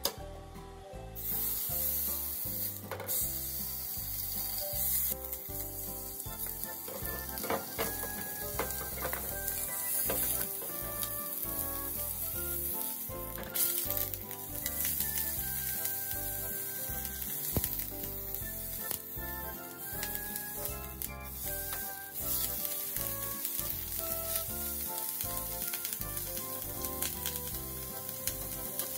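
Beef steak sizzling as it fries in hot oil in a nonstick frying pan. The sizzle starts about a second in and then keeps going steadily.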